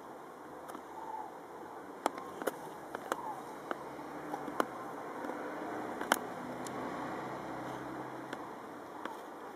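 Faint calls of a flock of migrating birds high overhead. Several sharp clicks stand out between about two and six seconds in, and a low hum comes in around the middle.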